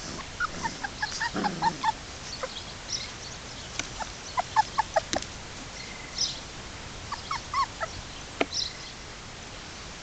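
German Shepherd puppies whimpering, a run of short high-pitched squeaks that come in three clusters, with a few sharp clicks among them.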